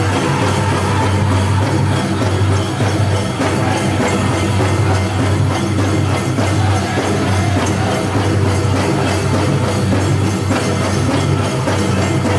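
Powwow drum group drumming and singing a chicken dance song for the dancers.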